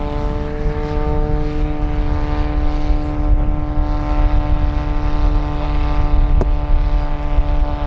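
A 50% scale Piper Clipped Wing RC model's Valach/Fiala 280 B4 petrol engine and propeller running in flight, a steady drone at constant throttle. The pitch swells slightly and settles about a second in.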